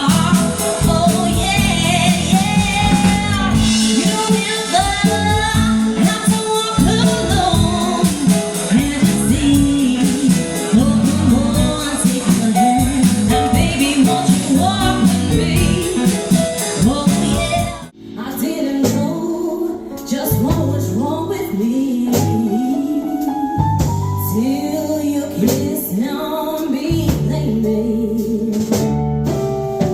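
A woman singing with band accompaniment. About 18 s in the music cuts off abruptly and a different song begins, with a sparser, guitar-led accompaniment.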